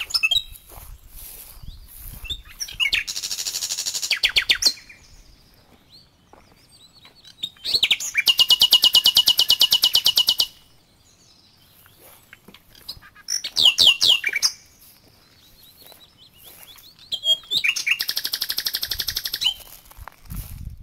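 Wild birds chirping, with repeated fast rattling trills a couple of seconds long, four times.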